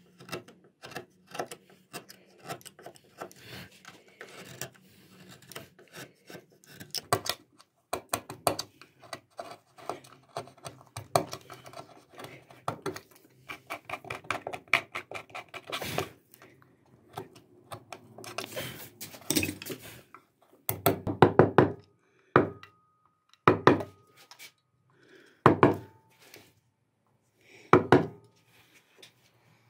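Hand chisel and gouge cutting into a carved wood panel: a run of short scraping cuts and clicks as the steel edge shears chips out. In the last third come louder clusters of quick sharp taps, two of them with a brief metallic ring.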